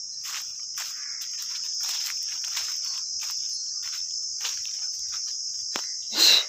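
A steady, high-pitched insect chorus, with scattered light crunches of footsteps on dry leaf litter. Near the end comes a brief loud rustle as the phone is swung.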